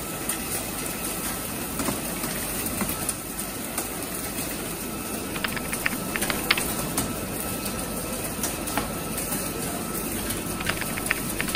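CNC gantry drilling machine boring an 80 mm hole in carbon steel with a U-drill under flood coolant: a steady cutting noise with scattered sharp ticks.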